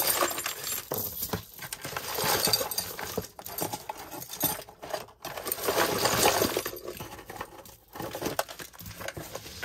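A hand rummaging through a tangled pile of costume jewelry: metal chains, beads and pendants clinking and rattling against each other, swelling and easing off several times.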